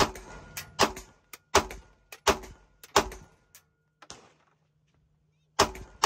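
Springfield Armory Echelon 9mm pistol firing single shots at a steady pace, about one every 0.7 s. After a pause of about two and a half seconds, two more quick shots come near the end.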